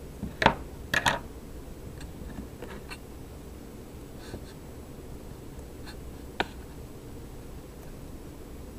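Handling noise of fingers picking up and moving an iPod and a sanding sponge on a wooden table: a few light clicks and knocks, the loudest about half a second and a second in and another near six and a half seconds, with faint rubbing between them over a low steady hum.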